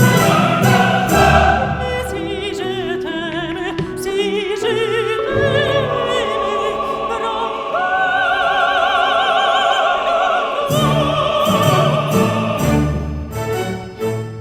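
Background music: an operatic voice singing with wide vibrato over an orchestra, with held high notes through the middle.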